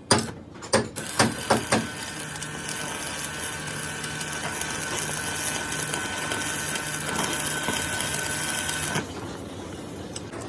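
A few sharp metal knocks, then a workshop machine or power tool running steadily with a high whine for about seven seconds before it cuts off near the end.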